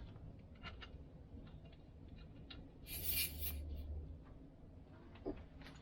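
Small clicks and rubbing as a cordless tyre inflator's air chuck is fitted onto a skid steer tyre's valve stem, with a short hiss of air about three seconds in.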